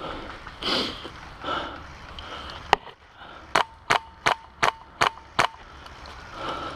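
Airsoft gun firing. A single sharp click is followed by six evenly spaced semi-automatic shots, fired at close to three a second.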